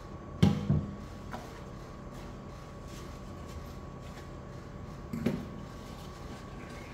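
A glass being handled and knocked at a stainless steel kitchen sink: two dull knocks about half a second in and another pair just after five seconds, over a faint steady hum.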